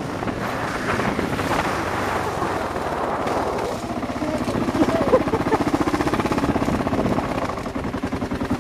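Kawasaki KLR single-cylinder motorcycle engine running at low road speed, with wind buffeting the microphone. The engine's rapid, even firing pulses come through more clearly from about four seconds in.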